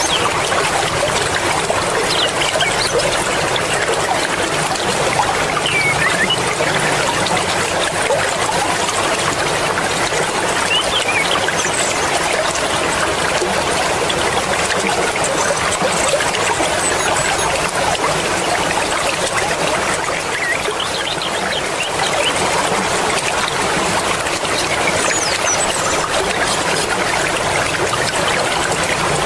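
Fast-flowing mountain river rushing and splashing over rocks, a steady, dense rushing that does not let up.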